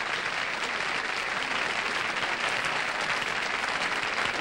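Studio audience applauding steadily, greeting a guest star's introduction.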